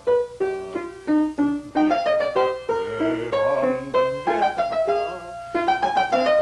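Background music: a piano playing a run of separate struck notes, a few per second.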